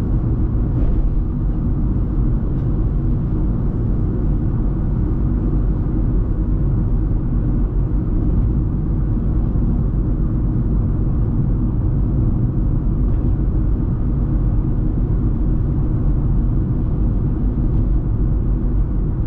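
Steady low rumble of road and engine noise inside a moving car's cabin while cruising.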